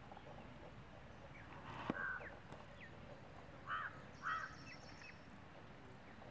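Crows cawing: three short caws, one about two seconds in and two close together past the middle, over a faint outdoor background with a few brief small-bird chirps. A single sharp click sounds just before the first caw.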